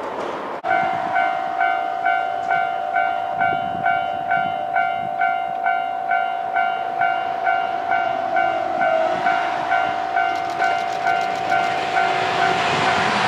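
Level-crossing warning bell ringing, starting abruptly about half a second in and striking evenly about two to three times a second, signalling an approaching train. Near the end the running noise of the passing HB-E300 hybrid railcar rises underneath, with some wheel clicks.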